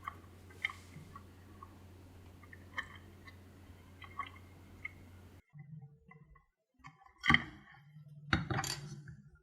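Small clicks and taps from handling and prying at the small parts of an opened LED bulb, over a faint steady hum. Near the end come a sharper click and a brief clatter.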